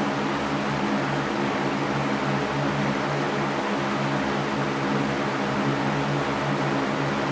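Electric fan running steadily: a constant whooshing rush of moving air over a low motor hum.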